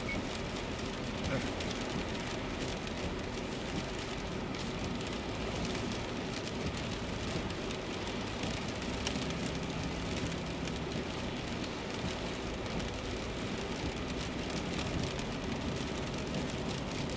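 Steady road noise inside a Subaru's cabin at highway speed in the rain: tyres on the wet road surface and rain on the windshield, with a faint low hum underneath.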